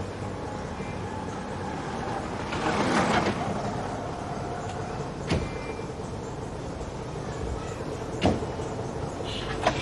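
Hindustan Ambassador car with its engine running, a brief rush of noise about three seconds in, then car doors shutting with two sharp thuds, about five and eight seconds in, as it pulls away.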